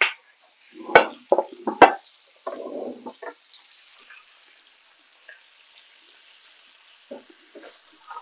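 Chicken pieces in butter giving a faint sizzle in a skillet while they are handled with tongs. A few sharp knocks and clatters come in the first two seconds, the loudest about a second and two seconds in.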